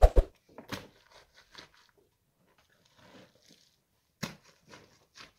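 Long-handled digging tool chopping into dry, stony soil: a loud strike at the start, another under a second in and two more near the end, with faint scraping and scuffing of earth between.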